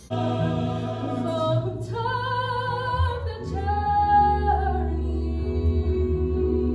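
A woman singing a solo, holding long notes with vibrato over sustained choral harmony. It begins abruptly just after the start.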